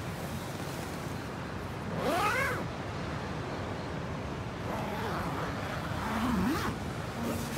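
A single mewing animal call, rising then falling in pitch, about two seconds in, over a steady rush of wind and sea.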